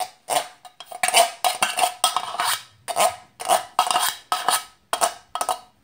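A utensil scraping the inside of an emptied metal Campbell's chicken noodle soup can, in quick, uneven strokes, each with a short ringing note from the can, as the last of the soup is scraped out.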